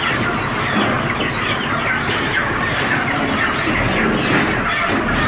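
Many chickens clucking and squawking at once, a dense steady din of overlapping calls over a low hum.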